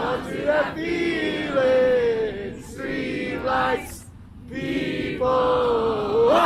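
Many voices singing together in unison, long held notes with short breaks between the phrases.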